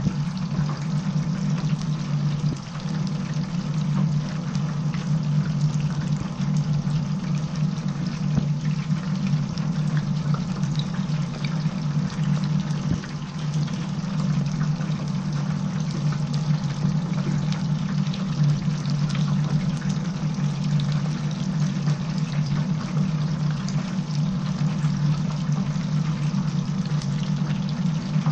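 Chicken deep-frying in a commercial stainless-steel fryer: hot oil bubbling and sizzling steadily with fine crackles, over a steady low hum.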